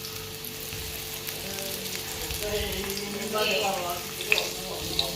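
Floured chicken necks deep-frying in a pot of hot oil: a steady sizzle of bubbling oil, with a brief sharp click about four seconds in.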